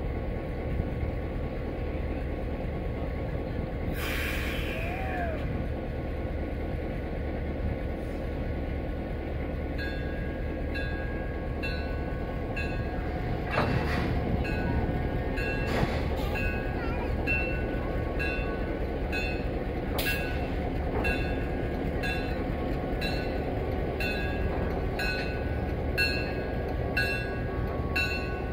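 Steady rumble of an E329 electric locomotive moving on a roundhouse turntable, with a brief falling squeal about four seconds in and a few metallic knocks. From about ten seconds in, a short high-pitched beep repeats at a regular pace.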